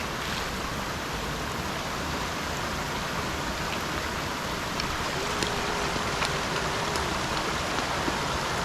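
Steady hiss of rain falling and a stream running, with a few faint drips or ticks.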